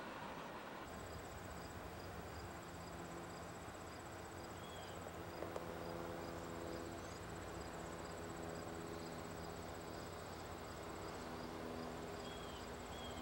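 Insects chirping in fast, evenly repeating pulses, with the faint low hum of a distant diesel locomotive engine running underneath.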